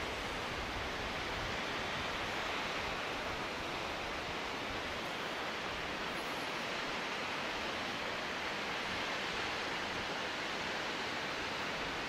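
Fukino Falls waterfall: a steady, even rush of falling water.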